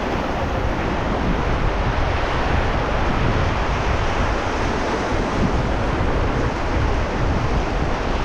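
Steady rush of river whitewater around a raft, with wind buffeting the microphone.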